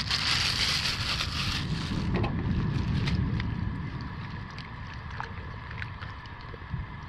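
Small boat's outboard motor running under way, a steady low rumble with wind buffeting the microphone. A loud hiss drops away about a second and a half in.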